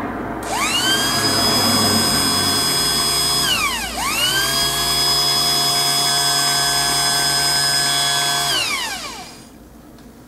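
Car windscreen wiper electric motor spinning a welded-on chain sprocket, its whine rising as it spins up. Around four seconds in it slows almost to a stop and spins straight back up, runs steady, then winds down near the end.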